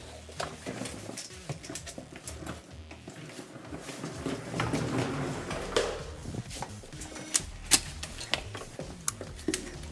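Handles, latch and bolts of a security door clicking and knocking as it is opened and swung shut, with one sharper knock nearly eight seconds in.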